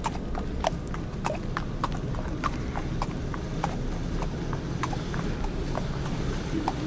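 Horse hooves clip-clopping at a walk on hard ground: an even run of sharp knocks, about three a second.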